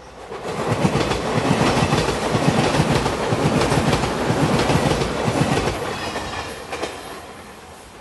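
Five-car Shiokaze limited express electric train passing close by, its wheels clacking over the rail joints. It rises quickly about half a second in, stays loud for about five seconds, then fades as the train moves away.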